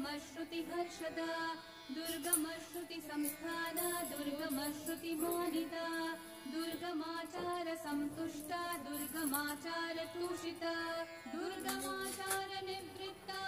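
Hindu devotional music with a sung melody over instrumental accompaniment, played during an aarti.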